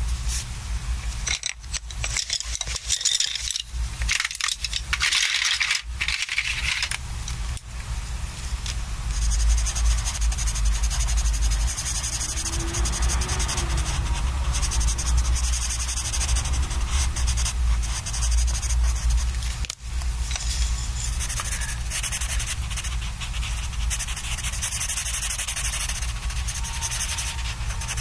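Colored pencil rubbing and scratching across sketchbook paper while shading. The strokes are short and stop-start through the first several seconds, then run on almost without a break.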